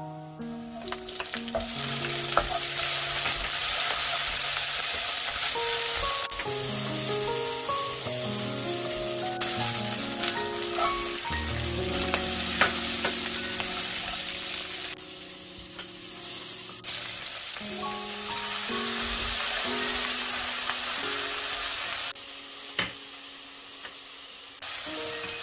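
Dried anchovies stir-frying in hot oil with garlic and chilies in a nonstick pan: a dense sizzle, with the wooden spatula stirring and scraping through them. The sizzle drops away briefly twice, for about two seconds each, near the middle and again near the end.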